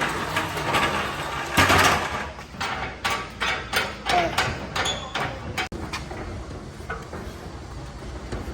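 Metal shop shutter rattling and knocking as it is worked and fixed in place: irregular sharp knocks, with a louder clatter about two seconds in and the knocks thinning out after about six seconds.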